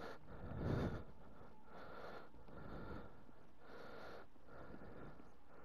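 Faint breathing of a person close to the microphone, a soft breath roughly every second, the first one the loudest.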